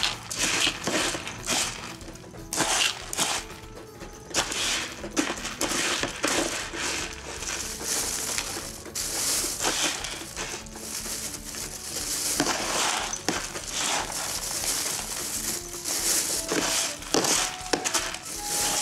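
Cat clawing and biting at a cardboard cat bed: quick, irregular crackling of cardboard being scratched and torn.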